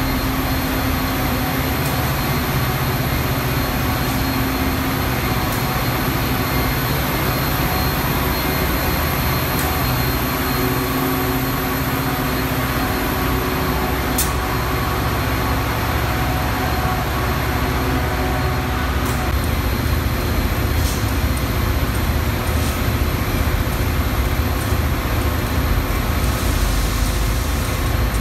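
Metra F40PH diesel-electric locomotive idling at a platform: a steady engine drone with a faint whine over it, echoing in the train shed. A single sharp tick sounds about halfway through.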